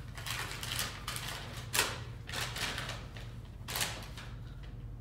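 Paper rustling in a few short bursts as an envelope is handled and a letter pulled out and unfolded, over a low steady hum.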